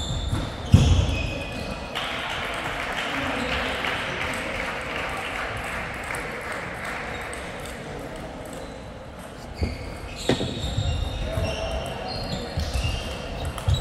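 A table tennis ball clicks against the bats and the table in a rally starting about ten seconds in, over steady sports-hall noise with distant voices. There is a single sharp knock about a second in.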